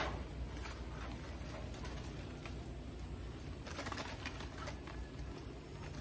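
Stiff leaves of a bird's nest fern rustling and scraping as the plant is handled and pushed into place, with a cluster of rustles about four seconds in. A bird coos in the background over a steady low hum.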